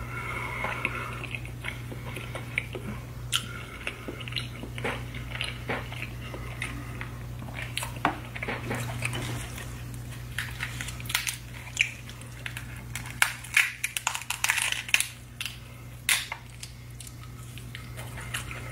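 Close-miked chewing and wet, sticky mouth sounds of saucy seafood boil being eaten, with sharp crackles and smacks as the food is pulled apart by hand. The crackles come thickest about eleven to sixteen seconds in, over a steady low hum.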